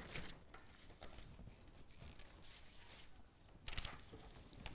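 Faint rustling and handling of paper sheets being picked up and laid out, with a slightly louder rustle a little before the end.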